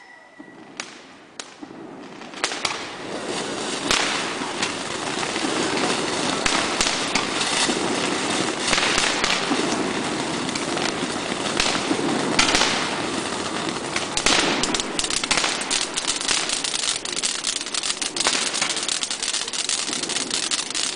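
Ground fountain firework spraying sparks: after a quiet start with a few sharp pops, a steady hiss full of crackling sets in about two and a half seconds in, with the crackles growing denser and sharper in the second half.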